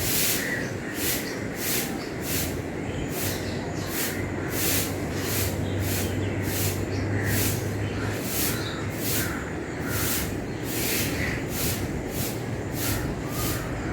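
Broom sweeping a garden in brisk, scratchy strokes, about two a second, with birds chirping faintly.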